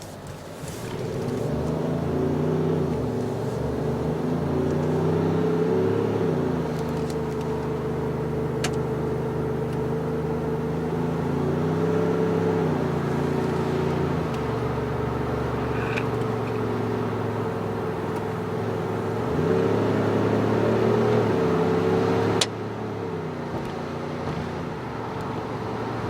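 Synthetic AMG GT-style V8 engine sound from a JSR Soribak active sound module on a Kia Carnival, not real exhaust. A steady engine drone rises and falls in pitch several times as if revving. It drops abruptly in level near the end.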